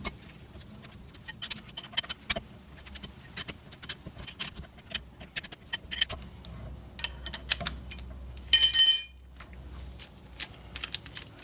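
Brake caliper piston wind-back tool being turned to screw a rear brake caliper piston back in: a run of small, irregular metallic clicks and clinks, with one loud ringing metal clink near the end.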